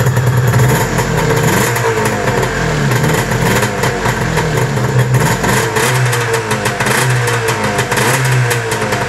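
Arctic Cat ZR 700 two-stroke twin snowmobile engine running, its speed rising and falling unevenly. The hand and thumb warmers have just been switched off; the owner suspects a short in the warmer switches behind the engine's intermittent spark trouble.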